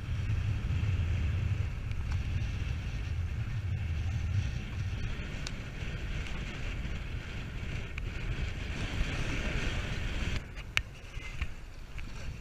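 Wind buffeting the microphone over water rushing and lapping along the hull of a small sailboat under way, with a few sharp clicks or knocks. The low wind rumble drops away about ten seconds in.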